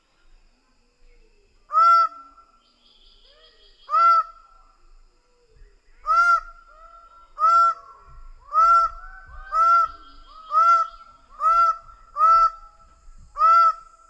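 Greater bird-of-paradise giving a series of ten loud, short, honking calls, which come faster, about one a second, from around six seconds in. Fainter, higher bird calls sound underneath.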